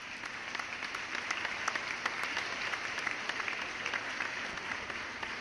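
Foam on a glass of fizzy candy-powder fake beer fizzing, a steady hiss crackling with many tiny bubbles popping.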